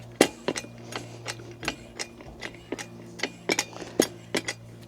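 Hand-operated hydraulic pump of a body-shop pull-back ram kit being worked, with an uneven run of sharp metallic clicks and knocks, about three a second, as the pump and pulling chain take up tension on the car's pushed-in A pillar.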